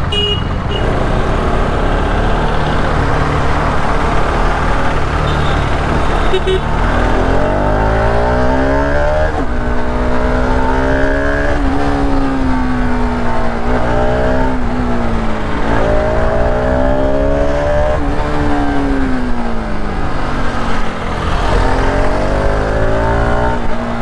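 Motorcycle engine heard from the rider's seat while riding, its note rising and falling several times as the bike accelerates and eases off, over a steady low rumble and road noise.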